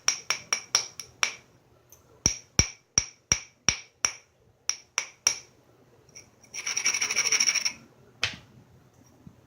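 Antler tool chipping and rubbing at the edge of a knapped stone during platform preparation: several runs of sharp, ringing clicks, about three to four a second, then a second of rapid scraping near the end and a single knock.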